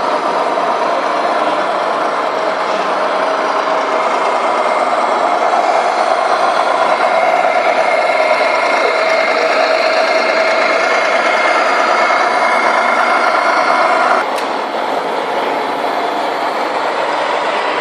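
Truck diesel engine sound from a 1:14 scale RC truck's sound unit, running steadily. A sharp click about fourteen seconds in, after which it is a little quieter.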